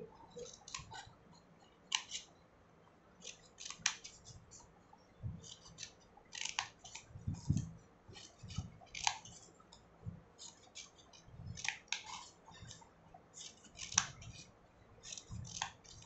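Scissors snipping a series of short cuts through folded paper, a crisp snip every second or two.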